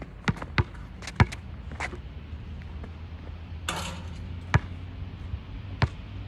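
Basketball bouncing on an outdoor asphalt court: about four sharp dribbles in the first two seconds. A short rattle follows just before the middle, as the shot reaches the hoop. Two more single bounces come later.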